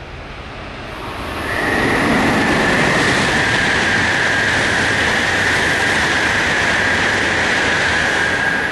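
Tohoku Shinkansen E2-series high-speed train passing through a station without stopping. Its rush of air and wheels swells over the first two seconds, then holds loud and steady with a high whine over it, easing only at the very end.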